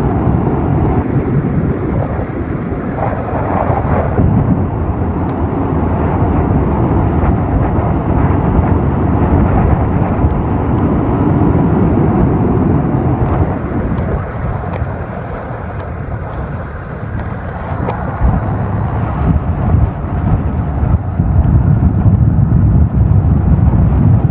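Loud wind buffeting the microphone over the running noise of a moving vehicle. It eases for a few seconds a little past the middle and grows louder again near the end.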